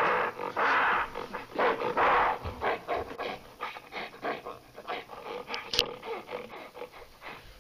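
Rough animal-like growls and panting, mock gorilla sounds: three long loud growls in the first two seconds, then quicker, quieter breaths. A brief high squeak comes near six seconds in.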